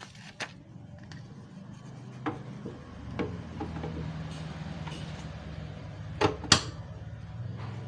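Hands fitting a roll of printed plastic sealing film onto a cup sealer's film holder: light knocks and rustling against the machine's frame and rods, then two sharp clicks in quick succession near the end. A steady low hum runs underneath from about two seconds in.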